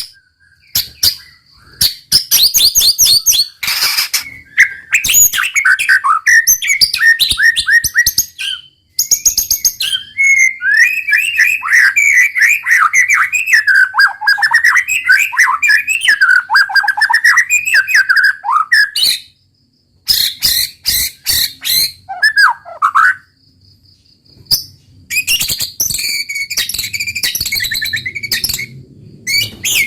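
White-rumped shama singing a long, varied song: rapid series of sharp clicks and trills, bright whistles and tumbling warbled phrases, broken by a few short pauses.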